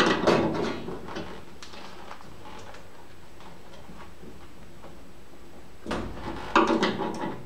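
Clicks and clanks of tools and metal parts being handled at a squirrel cage blower's belt-tension adjustment, in two short clusters: one at the start and one from about six seconds in, with a low thump. Between them is a quiet stretch.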